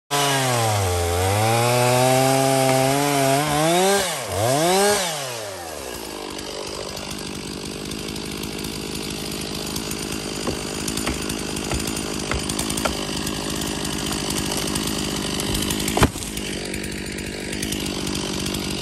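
Stihl chainsaw engine swinging up and down in pitch several times, then settling to a steady run for the rest of the time. A single sharp knock comes about two-thirds of the way through.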